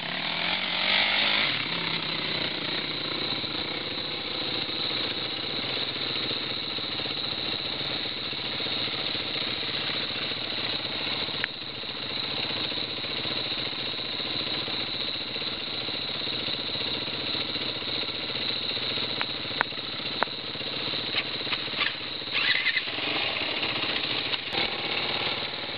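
Dirt bike engine running as the bike rides down a steep sand hill. The engine pitch rises in the first couple of seconds, and a few sharp knocks come near the end.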